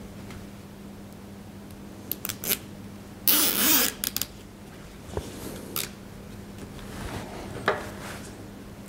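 A plastic cable tie is pulled through its ratchet head with a short zipping rasp about three seconds in. Small clicks of plastic parts being handled come before and after it, and a sharp snip near the end is side cutters trimming the tie.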